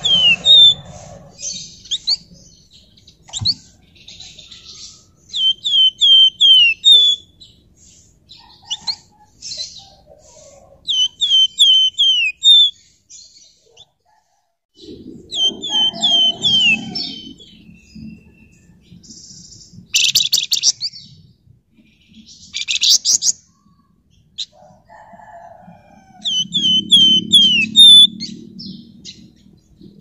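Flamboyan songbird calling in bursts: quick runs of falling whistled notes, broken by two harsh rasping chatters. A low rumble rises twice behind it.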